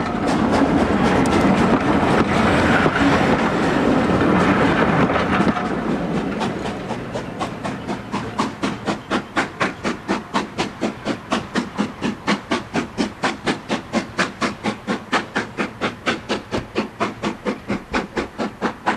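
A train of passenger coaches rolling past close by, first a loud rush of wheel and rail noise. As it draws away the wheels beat out a steady clickety-clack over the rail joints, roughly four to five clicks a second, slowly fading.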